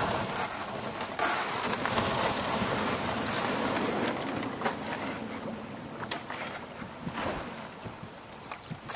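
Water rushing and lapping along a canoe's hull as it is paddled along the river, with wind noise on the microphone; it swells and eases over the first few seconds. A few light knocks come in the second half.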